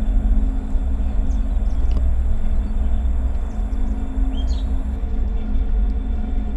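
Wind rumbling on the microphone in open country, with a steady low hum underneath and a few short bird chirps high above.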